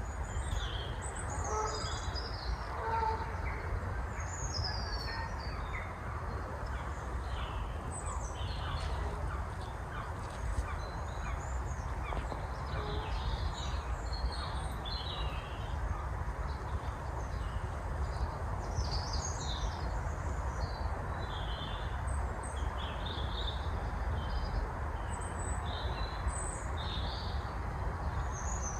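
Several small songbirds chirping and singing in woodland, with overlapping short calls and trills throughout, over a steady low background rumble.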